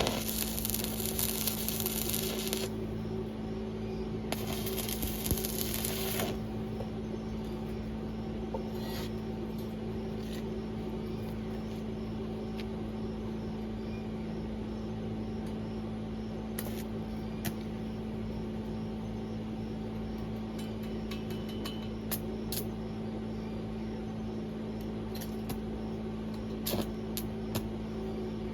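Electric arc welding: two short runs of crackling hiss, each about two seconds long, over a steady electrical hum. Scattered light metallic clicks and clinks follow.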